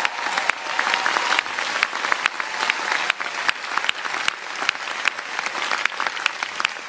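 Large audience applauding, a dense patter of many hands clapping that dies away near the end.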